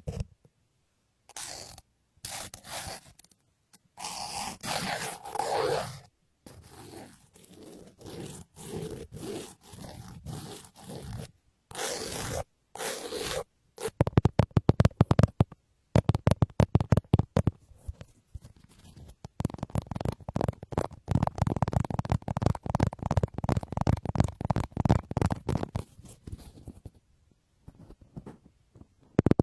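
ASMR triggers close on a binaural microphone: for the first half, separate scratchy strokes rubbed across it. About halfway through, these give way to the fast, louder chopping flutter of the 'helicopter' trigger, many pulses a second, with a brief pause near the end.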